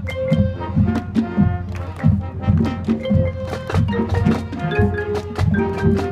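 Middle school marching band playing: wind instruments over drum hits and the front ensemble's marimbas.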